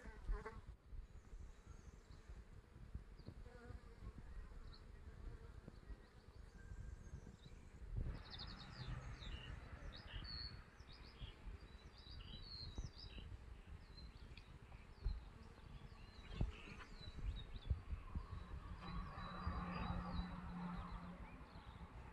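Honeybees buzzing in flight, the buzz coming and going as they pass close, most clearly about nine seconds in and again near the end. Short high chirps sound in the middle, over a low fluctuating rumble.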